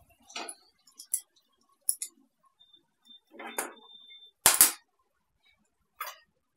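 A steel spoon stirring, scraping and tapping in a frying pan, with scattered clinks of steel utensils and a brief metallic ring in the middle. The loudest sound is a sharp double knock about four and a half seconds in, and a smaller knock comes near the end.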